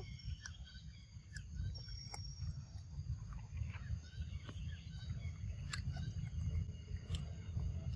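Outdoor forest background: a steady low rumble, with scattered sharp clicks and faint short high chirps.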